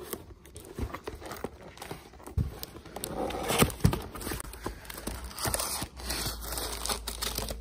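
Cardboard parts box being opened by hand: rustling and crinkling of packaging with scattered clicks, and two sharper knocks a little under four seconds in.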